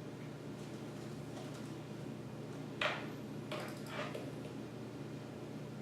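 Quiet room with a steady low hum, a single light knock near the middle, and a few faint soft handling noises after it.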